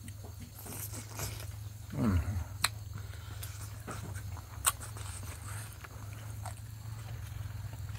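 A man eating pork and snail with his hands: chewing and wet mouth smacks, with a few sharp clicks and a short sound falling in pitch about two seconds in, over a steady low hum.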